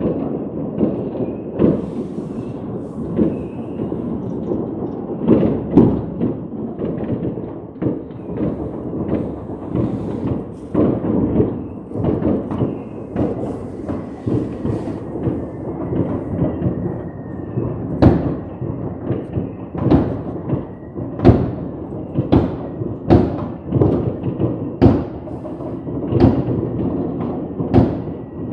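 Fireworks going off in a dense barrage: a continuous low rumble of overlapping booms with sharper bangs, which stand out more clearly in the second half.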